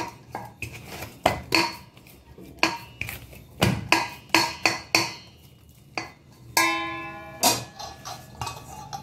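Stainless steel bowl knocking and clinking as hands with bangles pat and press a ball of oiled dough in it: a quick run of sharp clinks. About two-thirds of the way through, a metal rings out briefly.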